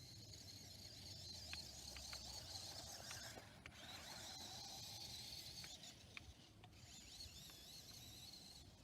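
Small electric motor and gearbox of a 1:12 scale RC rock crawler whining faintly, the pitch wavering up and down with the throttle and dropping out briefly a few times, with scattered small clicks as it drives.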